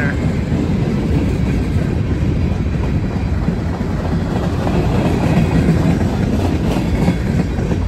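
Freight train cars (tank cars, covered hoppers and boxcars) rolling past close by: a steady, heavy low rumble of steel wheels on the rail, with a few faint clicks near the end.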